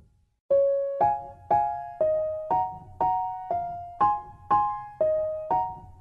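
Background music: a gentle keyboard melody, one struck note about every half second, each dying away. It starts about half a second in, after a brief pause.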